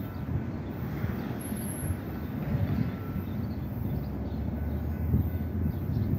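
Low, steady rumble of a distant vehicle, with a few louder low thumps near the end.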